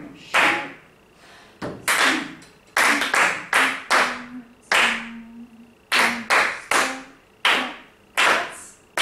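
A group of choir singers clapping a rhythm together in unison: about a dozen sharp claps at uneven spacing, following the rhythm of the words of the passage they are learning.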